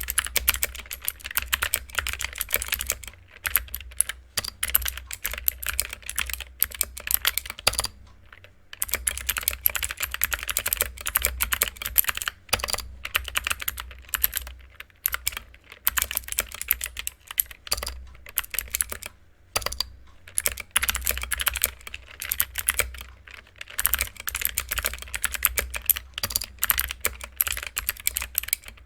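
Mechanical keyboard with clicky blue switches being typed on quickly, a dense run of sharp clicks in bursts, broken by short pauses a few times.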